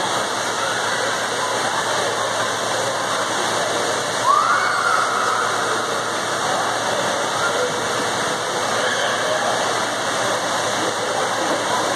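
Indoor swimming pool hall ambience: a steady wash of splashing, churning water with faint voices echoing off the hard walls. One brief high call rises and falls about four seconds in.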